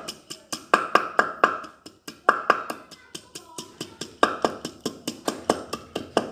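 Ginger being pounded with a pestle to crush it: quick, repeated hard strikes, about four to five a second, with a couple of short breaks.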